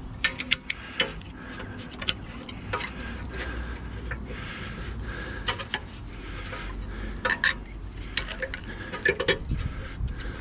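Small metal hand tools clicking and scraping against a steel circlip and the suspension bush housing in irregular light metallic clinks, as the circlip is prised out.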